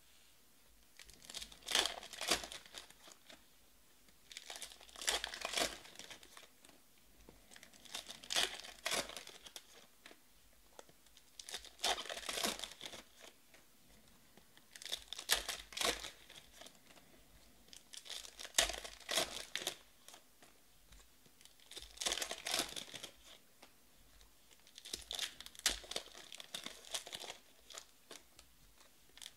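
Trading-card packs in crinkly wrappers being torn open one after another: a crackling rip of the wrapper about every three and a half seconds, eight times.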